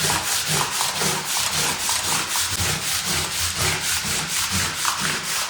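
Brisk back-and-forth scrubbing, an even run of quick rubbing strokes, several a second, as a surface is scrubbed clean.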